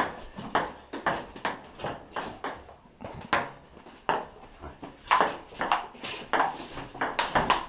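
Ping-pong ball being hit back and forth, clicking sharply off the paddles and the table about two to three times a second.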